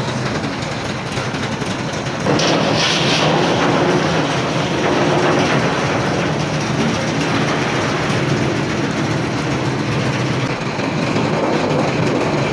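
Papad-making factory machinery running steadily: a loud mechanical rattle and hum that steps up in loudness about two seconds in.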